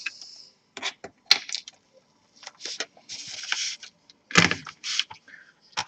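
Small clicks, taps and a brief scrape of laptop parts being handled while a screw is taken out with a screwdriver, with a louder knock about four and a half seconds in.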